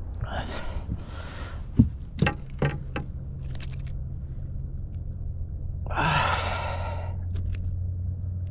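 A man breathing out heavily twice, once near the start and again about six seconds in. A few sharp knocks come about two to three seconds in, over a steady low hum.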